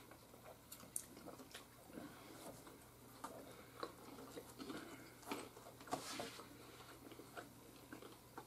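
Two people chewing dry, crispy oven-baked pizza rolls: faint, irregular small crunches and clicks.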